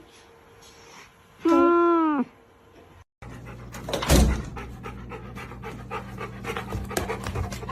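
A short pitched animal call, then a dog panting fast and excitedly, with a loud bump about four seconds in.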